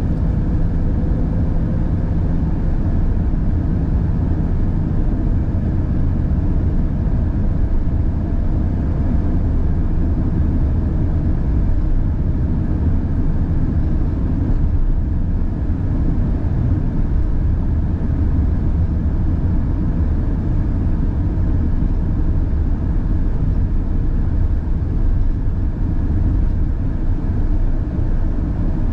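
Steady low rumble of a car driving at road speed: tyre and engine noise.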